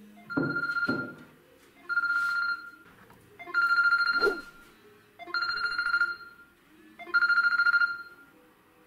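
Smartphone reminder alert ringing: a buzzy, high electronic beep repeated five times, about one every 1.7 seconds, stopping as the alert is dismissed near the end.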